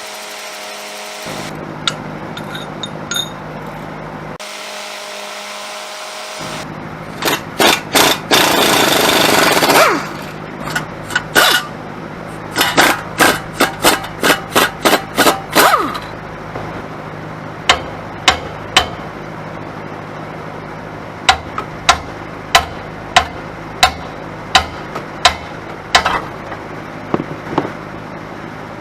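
Impact wrench working bolts loose in short bursts: one continuous run of about two seconds, then a quick string of blips, then single blips about a second apart.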